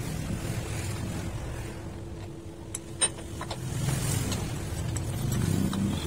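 Short metallic clinks as a chuck key works the jaws of a large four-jaw lathe chuck, the sharpest about three seconds in, over a low steady hum of shop machinery.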